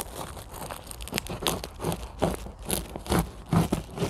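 Cardboard box being opened: packing tape cut and ripped and the cardboard flaps pulled back, a string of short sharp tearing and crackling noises that grow louder in the second half.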